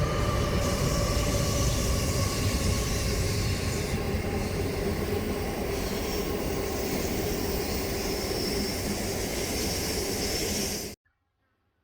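A train passing close by on the railway line: a loud, steady rush of wheels running on the rails with a few held ringing tones over it. It cuts off suddenly near the end.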